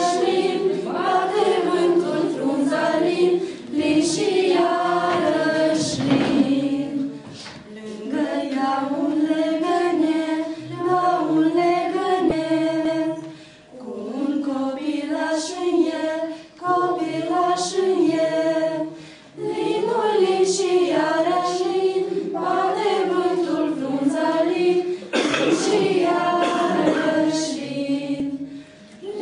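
A small group of mostly female voices singing a Christmas carol (colindă) unaccompanied, in phrases with short breaks between them.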